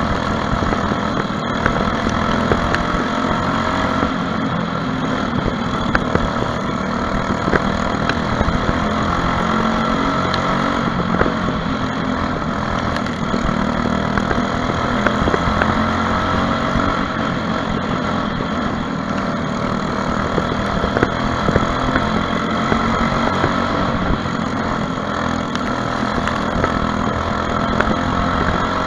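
Briggs & Stratton LO206 four-stroke single-cylinder kart engine running hard, heard on board the kart, its pitch rising and falling a little as it laps the oval.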